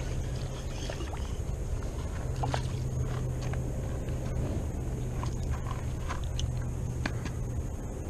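Shimano Curado baitcasting reel being cranked to retrieve a hooked bass: a steady low whir that stops for about a second near the start and then runs on, with scattered clicks and scrapes from handling the rod and fish.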